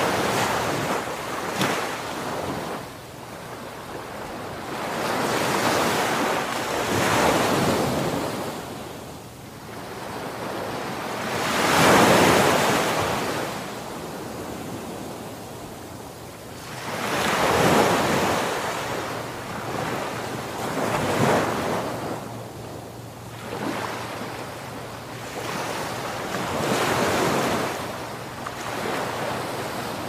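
Ocean surf: waves breaking and washing ashore in swells of rushing water every five or six seconds, the loudest about twelve seconds in.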